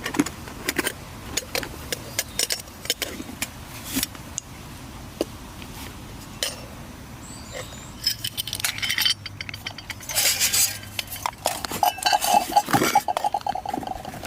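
Small gear clinking, clicking and knocking as it is handled, with the clatter busier in the second half and a brief steady pitched sound near the end.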